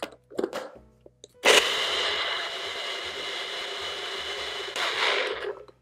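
NutriBullet blender running for about four seconds, grinding seeds, oats and liquid into a thick dressing, then stopping. A few clicks come first as the cup is seated on the base.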